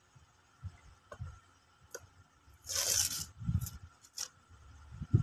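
Packing tape being peeled off a cardboard box, with one loud rip about three seconds in and a few light taps and knocks from the box being handled.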